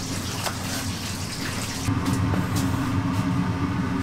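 Steady kitchen background noise: a low hum under a running-water-like hiss, with a few light clicks. The hum gets louder about two seconds in.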